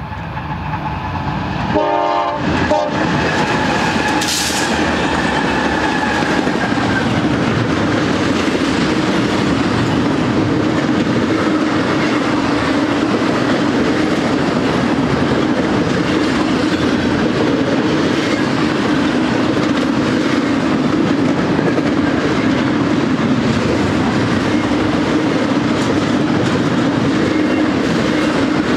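BNSF freight locomotives sound the horn and pass at speed, their engines growing loud about two seconds in. The horn fades over the next few seconds, and the long string of double-stack intermodal well cars then rolls by with steady wheel-on-rail rumble and clickety-clack.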